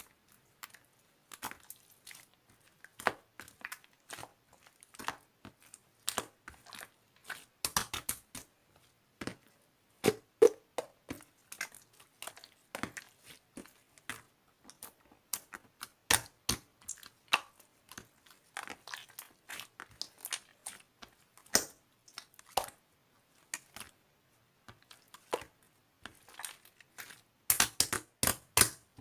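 Slime being squeezed, stretched and folded by hand, giving off irregular sharp clicks and pops of trapped air, with a quick run of louder pops near the end.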